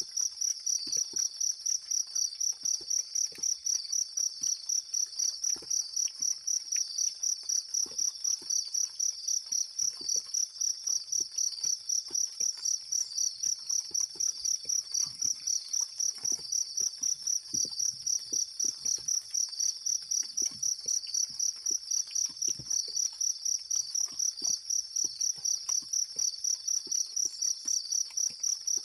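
Insect chirping in a steady, even rhythm of about three high-pitched pulses a second, with faint scattered ticks beneath it.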